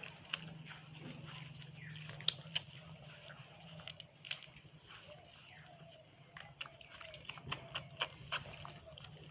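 Dog chewing: irregular sharp crunching clicks, more frequent in the second half, over a steady low hum.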